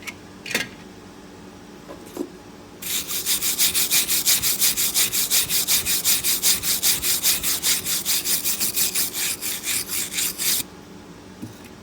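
Rapid back-and-forth scraping on a steel bracket, about six strokes a second, starting about three seconds in and stopping abruptly some eight seconds later. A few light knocks come before and after it.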